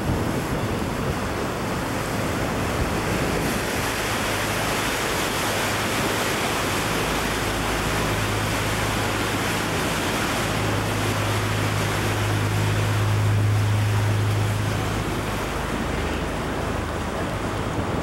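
Canal tour boat underway: steady rushing of water and wind on the microphone, under a low engine hum that swells about halfway through and eases off near the end.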